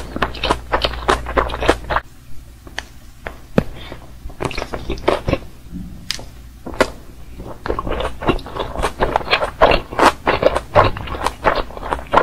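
Close-miked eating sounds of a mouthful of sushi roll: chewing clicks and wet smacks, sparse at first and dense from about the middle on as a large bite is chewed.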